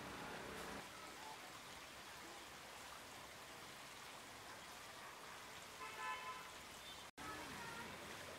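Faint outdoor ambience with a short, distant horn toot about six seconds in. The sound drops out for an instant about a second later.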